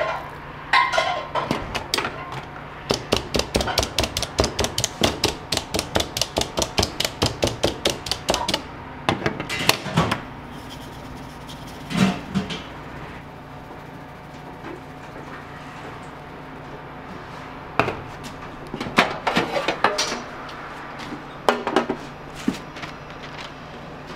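Handheld meat tenderiser pressed rapidly and repeatedly into raw pork loin cutlets on a plastic cutting board, giving a fast run of sharp taps at about five a second, then a few single knocks. Near the end come scattered clatters of a metal tray being handled.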